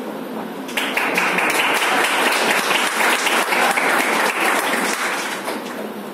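A classroom of students applauding together, starting suddenly about a second in and fading away near the end.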